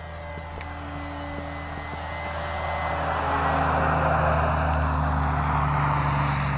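Electric RC airplane's motor and propeller running in flight overhead, growing louder over the first four seconds as it comes nearer, then holding steady.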